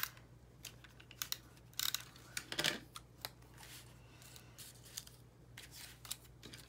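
Handheld adhesive tape runner pressed and rolled in a few short strokes across a small cardstock label, giving brief scraping clicks, with soft rustling of cardstock being handled between them.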